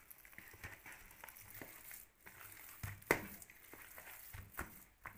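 A hand squishing and kneading chicken pieces in a thick gram-flour (besan) and spice batter in a plastic bowl: irregular wet squelches and rustles, with one sharp knock a little after three seconds in.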